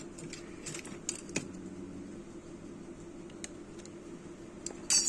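Steady hum of a desktop motherboard powered on for testing, its CPU cooler fan and power supply running, with a few faint clicks and a louder metallic clatter near the end. No POST beep sounds.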